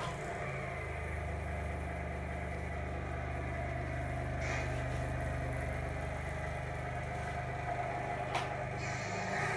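Tamiya Grand Hauler RC truck's simulated truck-engine idle sound, a steady low hum, with a short hiss about halfway through and a sharp click near the end.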